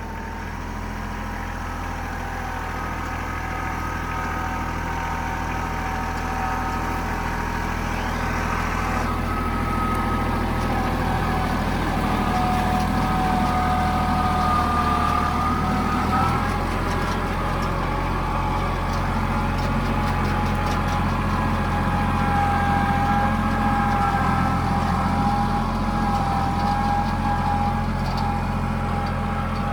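Tractor engine running steadily under load while hauling a heavy log, with a higher whine over the engine note that drifts slightly in pitch.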